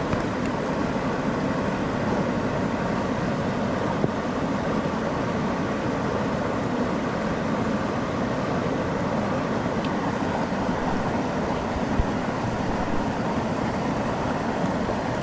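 Steady rushing of a flowing mountain stream, with a couple of faint sharp clicks, one about four seconds in and another near twelve seconds.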